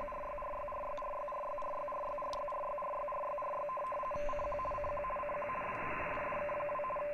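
Shortwave RTTY signal coming through a Nooelec V5 RTL-SDR receiver: two tones, a lower and a higher one, keying back and forth over a bed of receiver hiss. From about four seconds in, the tones break up into rapid keying.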